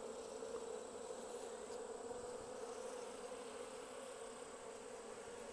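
A colony of Japanese honeybees on an opened hive, buzzing in a low, steady hum.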